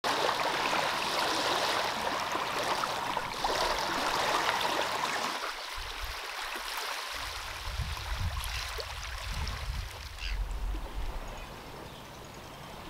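Small waves washing onto a gravelly shore, a steady hiss of water that cuts in suddenly. From about halfway the hiss thins and a low, uneven rumble of wind on the microphone takes over.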